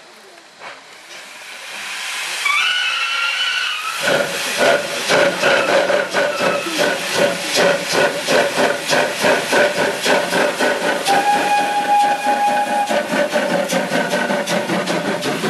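PKP Tr5 steam locomotive pulling away from a standstill: a short whistle blast, then about four seconds in a sudden heavy steam hiss, with the blast-pipe exhaust beating in a steady chuff about two to three times a second as it gets under way, the cylinder cocks venting steam.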